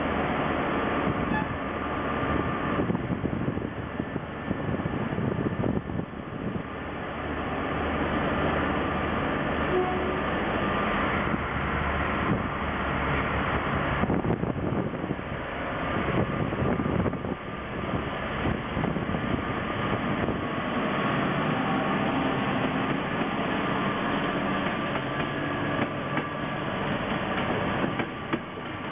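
Irish Rail 201 Class diesel locomotive's EMD two-stroke engine running steadily as it hauls a rake of passenger carriages past, with a low rumble and the noise of the wheels on the rails.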